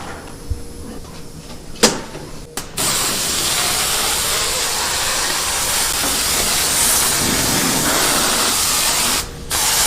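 A sharp click, then a loud steady hiss of a pressurised jet for about six seconds, which breaks off briefly near the end and starts again.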